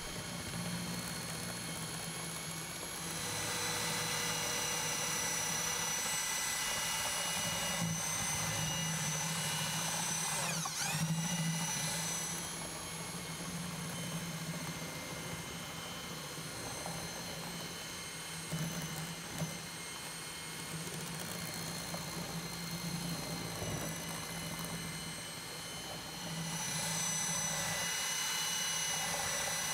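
Milwaukee electric mixing drill driving a box paddle through polishable concrete topping in a plastic barrel, its motor running with a steady high whine. The level steps up and down a few times, with a brief sag and recovery in the motor's pitch about ten seconds in.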